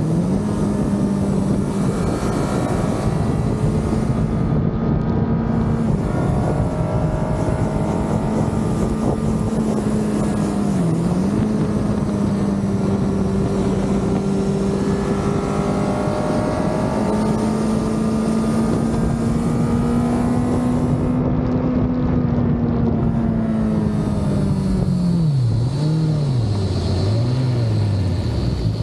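Honda CBR1000RR's inline-four engine running at a steady cruising note under way, with a brief dip in pitch about a third of the way in. Near the end the note falls, then drops and climbs quickly two or three times as the bike slows and shifts down.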